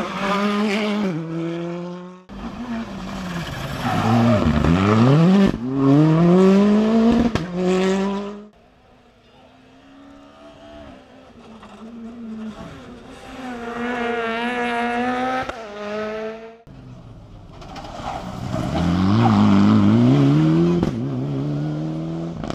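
Rally car engines revving hard on a tarmac stage. The pitch climbs and drops back with each gear change, in several separate passes that cut sharply from one to the next. The stretch in the middle is quieter.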